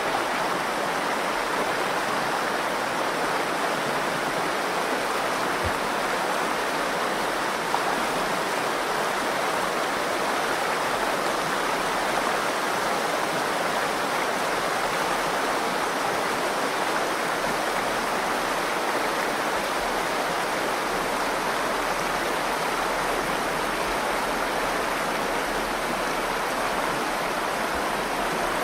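The Virgin River flowing steadily through the canyon, an even rush of water with no break.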